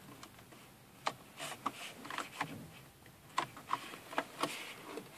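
Scattered light clicks and taps, about a dozen, as a hand touches the plastic centre console, seat-heater buttons and gear lever of a car.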